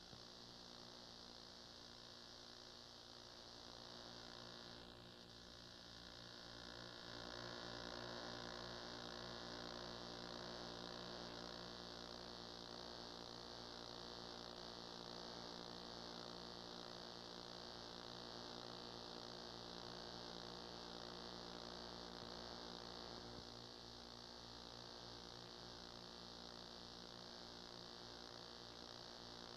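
Near silence: a steady electrical mains hum with a layer of hiss on an old tape soundtrack, with no game sound.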